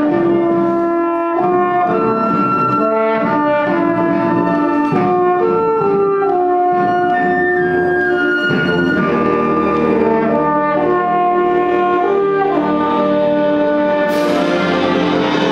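Euphonium playing a slow solo melody over a concert band accompaniment with clarinets and other brass. A bright crash, like a cymbal, rings out about a second before the end.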